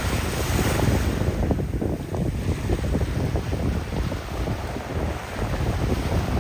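Wind buffeting the microphone in a steady low rumble, with surf washing on the beach beneath it.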